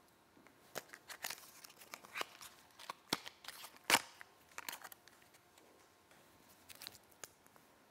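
Small irregular clicks and crackles of hands handling small items, the loudest click just before four seconds in.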